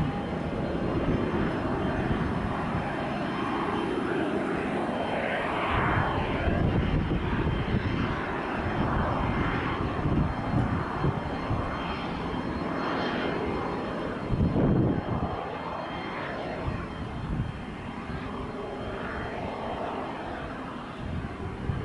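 Jet engine noise from an Embraer ERJ-145 regional jet's two turbofans, a steady rushing drone that swells and fades a little.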